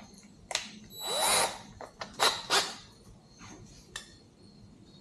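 A drill being handled while its bit is changed back to the pilot bit: a brief rising whir about a second in, then a few short rattles and clicks.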